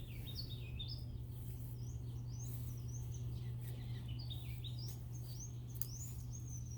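Songbirds chirping and warbling in quick, repeated high phrases, over a steady low hum.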